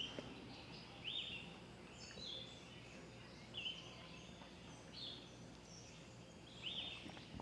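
Faint birdsong: short, high chirping calls, repeated at irregular intervals over a low, steady background hum.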